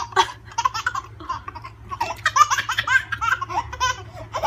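A baby laughing in repeated short bursts of giggles, thinner for a second or so and then louder and more continuous in the second half.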